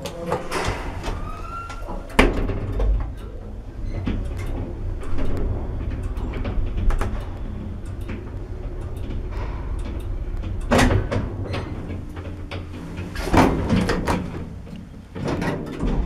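Zremb passenger lift in operation: a button click and a door shutting in the first few seconds, then the car travelling with a steady low hum. Two bursts of clunking from the doors and lift machinery come near the end.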